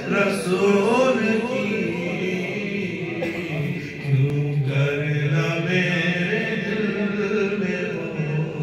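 A man reciting an Urdu naat into a handheld microphone, chanting in long melodic held phrases without instruments.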